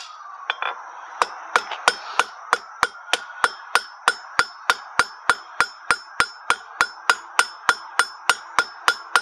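Hand hammer striking a red-hot square steel bar on an anvil in steady blows, about three a second, each with a bright metallic ring from the anvil, as the end of the bar is forged round. The blows stop for about a second at the start, then run on evenly.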